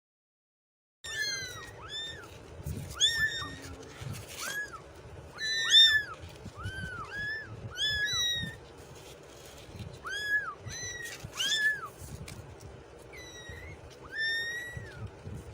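Kittens mewing again and again: short, high-pitched calls that rise and fall, coming in quick succession after about a second of silence at the start.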